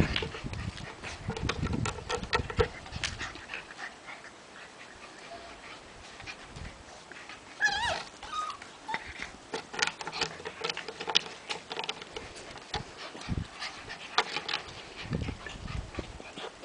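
White Puli puppies playing, with a short, high, wavering whimper or yelp about eight seconds in, among scattered scratching and tapping sounds.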